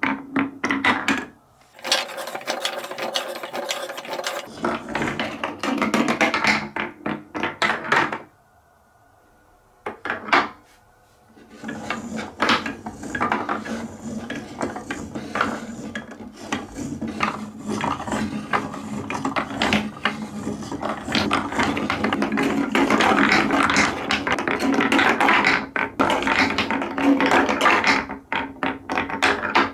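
Large balls rolling and clattering through a Trix Track marble run of wavy plastic slopes and wooden pieces, with many sharp knocks as they drop and hit the pieces. There is a brief lull with a single knock a third of the way in. In the second half a hand-pushed staircase lift clacks and rattles as it steps the balls upward.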